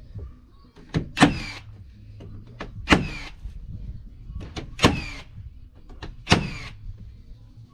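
A Hikoki (Hitachi) cordless first-fix nail gun firing four nails into siding boards, one about every one and a half to two seconds. Each shot is a sharp crack followed by a brief falling whine, with lighter clicks in between.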